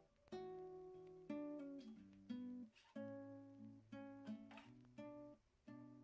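Faint background music: plucked guitar notes and chords, a new one struck about once a second and each dying away.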